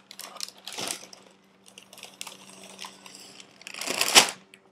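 A cardboard cereal box being handled and opened: scattered taps and crinkles of cardboard, with a louder crinkling rustle about four seconds in.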